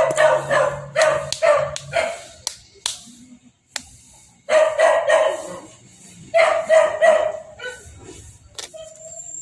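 A dog barking in quick runs of short yaps, three bouts with pauses between.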